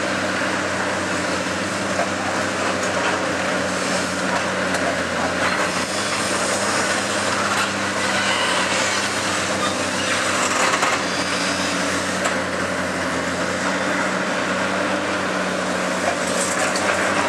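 Long-reach demolition excavator's diesel engine and hydraulics running steadily under load while its boom-end crusher bites into a concrete floor slab, with crackling and crumbling of breaking concrete over a continuous hum.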